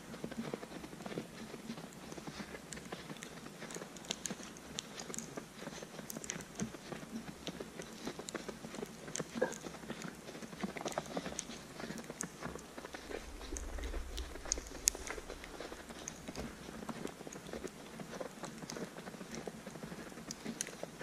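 Footsteps crunching through fresh snow at a steady walking pace. A low rumble swells and fades about two-thirds of the way through.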